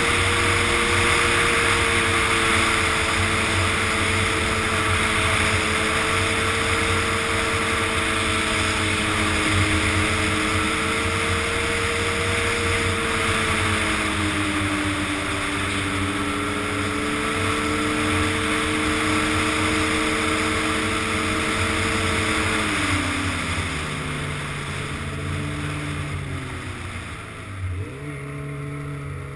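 Snowmobile engine running at a steady cruising pitch that wavers a little, then drops sharply about three quarters of the way through as the throttle comes off and the sled slows, its note climbing again near the end.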